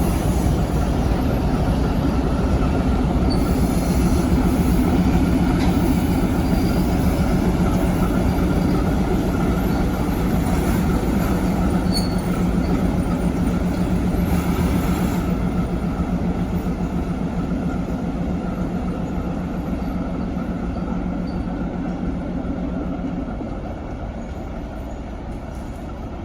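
ChME3 diesel shunting locomotive running steadily as it shoves a cut of freight wagons, with the low rumble of wheels on rail. The sound fades over the last several seconds, and the engine's steady hum drops away near the end.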